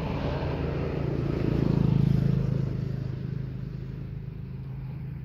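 Engine of a motor vehicle going past, a low steady hum that swells to its loudest about two seconds in and then fades away.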